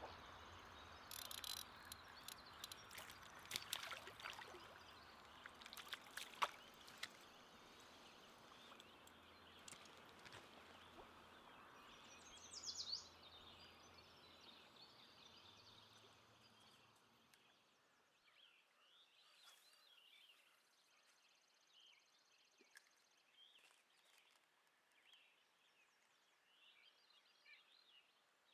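Faint outdoor ambience near silence: a soft hiss with scattered sharp clicks for most of the first part, turning quieter about two-thirds of the way in, with faint bird chirps.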